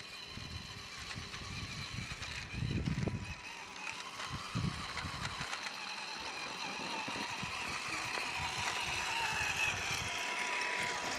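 Radio-controlled Axial SCX10 crawler truck driving, its electric motor and gears giving a faint steady whine, with a couple of low rumbles about three and four and a half seconds in.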